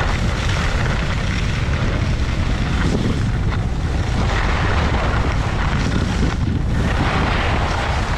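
Loud, steady rush of wind buffeting a GoPro Hero 8's microphone while skiing downhill, mixed with skis sliding over packed snow.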